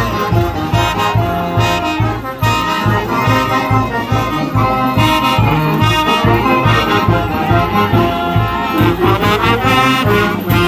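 Brass band of saxophones, trumpets and trombones playing a lively traditional dance tune over a steady low beat.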